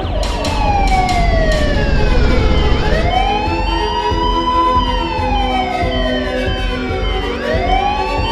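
Electronic police-siren sound effect from a toy police airplane, a slow wail that falls, rises and falls again over several seconds. A few sharp clicks sound in the first second or so.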